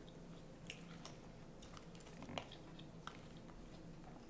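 Quiet, close-up chewing of a mouthful of salad, with a few faint short clicks and crunches.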